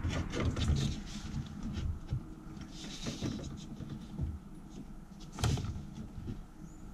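Hand handling of steel motor-mount bracket pieces and bar clamps: a run of clicks, knocks and scrapes, with the loudest knock about five and a half seconds in.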